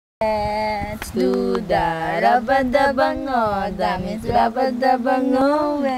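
Singing with long held notes that glide in pitch, over a steady low held tone.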